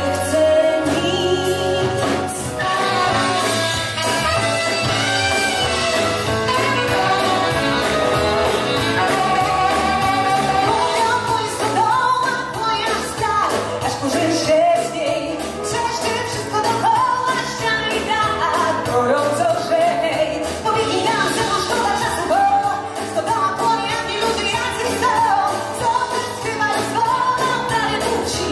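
Pop song playing: a woman singing a melody over a band with a steady beat.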